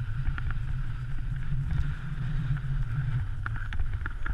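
Snowmobile engine running steadily with a low rumble, with a few light knocks or clicks over it.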